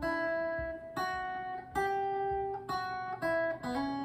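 Clean electric guitar (Fender Stratocaster) playing a slow single-note melody: about six notes, each left to ring before the next is picked. It is the first phrase of the song's melody.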